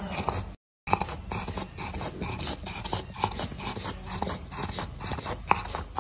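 English bulldog sick with flu breathing noisily through its open mouth, with short snorts and snuffles. The sound drops out briefly under a second in.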